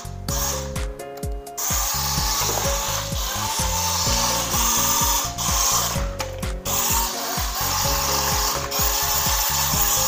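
Remote-control wall-climbing toy car running on the tabletop in floor mode: its small electric drive motors whirring at high speed and its wheels rubbing the table surface, cutting out briefly a couple of times.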